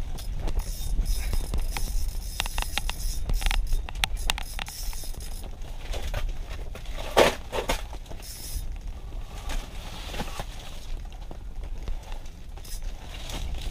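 Handling noise of an ice-fishing rod and reel worked by hand at the hole while playing a big lake trout: scattered clicks, scrapes and rustles, with a louder burst about seven seconds in. A low rumble runs underneath.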